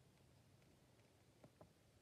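Near silence: room tone, with two faint short clicks close together about one and a half seconds in.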